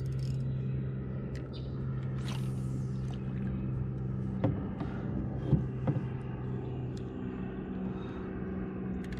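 A steady low motor hum, with a brief hiss about two seconds in and a few sharp knocks about halfway through.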